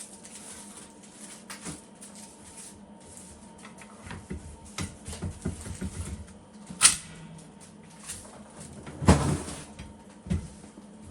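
Scattered clicks, knocks and rustling of hands working at a table, with a sharp knock about seven seconds in and a louder clatter about nine seconds in.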